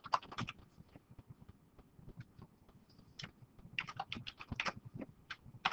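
Typing on a computer keyboard: scattered faint keystrokes at first, then a quick run of keystrokes about four seconds in.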